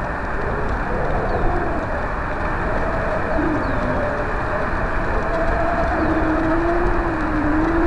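Steady wind rush buffeting the microphone of a kite-borne pocket camera, with a faint distant wavering drone from an ice cream truck, one held tone and then a lower one about six seconds in.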